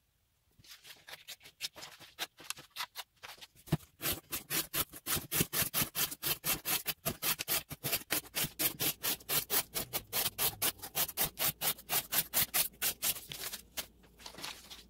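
A Spyderco Manix 2 Lightweight's CPM REX45 blade slicing cardboard in a rapid run of cutting strokes. The strokes are fainter and more spaced out at first, then come loud and quick, about five a second, from about four seconds in until shortly before the end.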